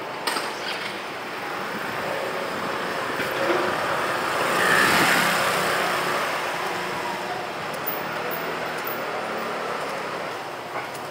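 Street traffic noise, with a motor vehicle passing close that swells to its loudest about five seconds in and then fades away.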